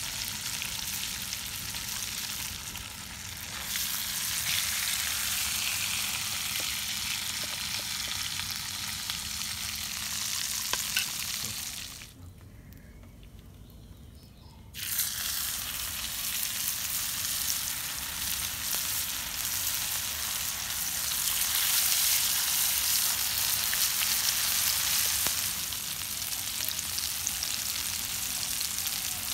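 Hot oil sizzling steadily as spice-coated trigger fish fries in a shallow pan. About twelve seconds in the sizzle drops away for a couple of seconds, then comes back strong as fresh marinated pieces go into the oil, growing louder for a while after.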